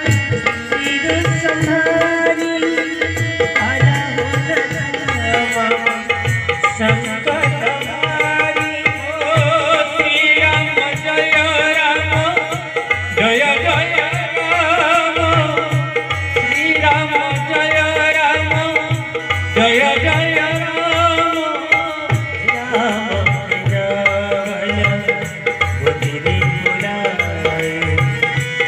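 Tabla playing a steady, dense rhythm under a harmonium melody, with a wavering sung line, in the style of a devotional Ram bhajan.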